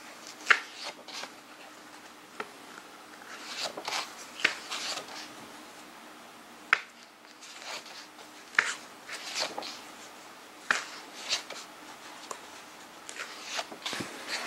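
Pages of a large, heavy hardcover book being turned, a dozen or so short, crisp paper flicks and rustles with brief pauses between them.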